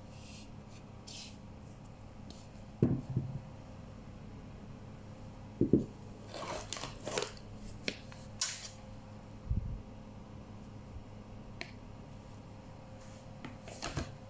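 Hands handling a wooden bowl and containers on a kitchen worktop: a few sharp knocks and a dull thud, with short scraping, brushing noises in the middle, over a steady low hum.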